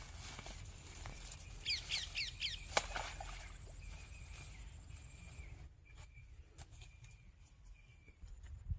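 A bird giving a quick series of short chirps about two seconds in, over a low rumble of outdoor ambience with a few scattered clicks.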